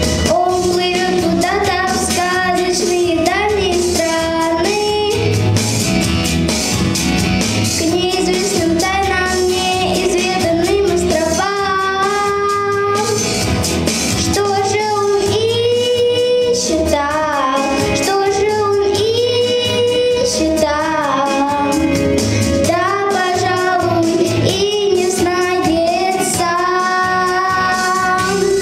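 A young girl singing solo into a microphone over instrumental accompaniment, holding long notes with a wavering vibrato.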